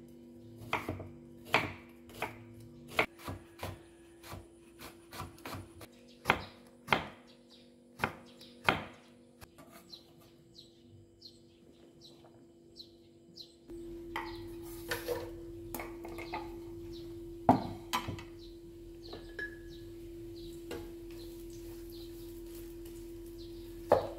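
Kitchen work: a run of sharp knocks and clatter of utensils and dishes, then a steady low hum comes on about halfway through, with a few more loud knocks over it.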